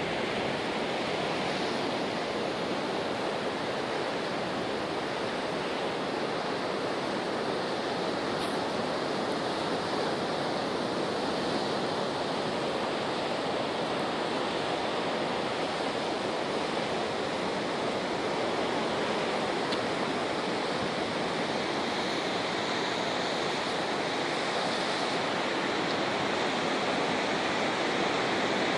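Steady, even rush of ocean surf breaking on a rocky shore.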